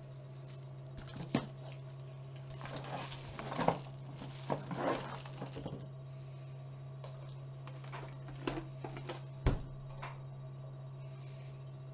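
Handling noise as the webcam is moved: rustling and a few sharp knocks, the loudest about a second and a half, four, and nine and a half seconds in, over a steady low electrical hum.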